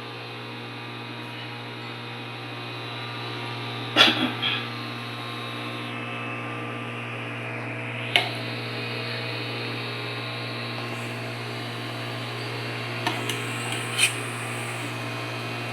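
A steady electrical hum, with a few sharp clinks and knocks of kitchen utensils: one about four seconds in with a quick rattle after it, one around eight seconds, and a couple near the end.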